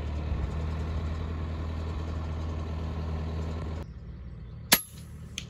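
A tractor engine running steadily in a low hum, cut off abruptly. About a second later comes a single sharp crack, the shot of a suppressed FX PCP air rifle.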